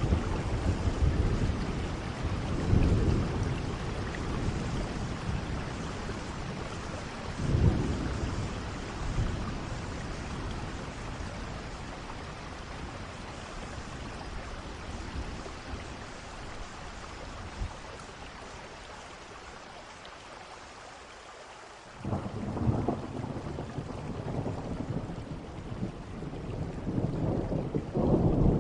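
Steady rain with low rolling thunder, the rumbles swelling near the start and again about eight seconds in. The thunder then dies away, leaving quieter rain. About 22 seconds in, rain and rumbling thunder come back suddenly.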